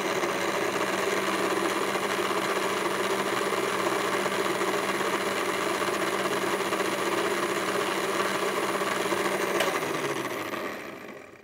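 Electric countertop blender running steadily as it purées a green chutney, its motor whirring at a constant pitch. About ten seconds in it is switched off and winds down to a stop.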